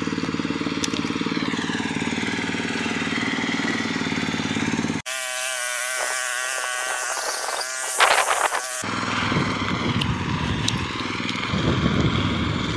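Tractor engine running steadily. A few seconds in, the sound cuts abruptly to a stretch of hiss with a short loud burst, then the steady engine returns.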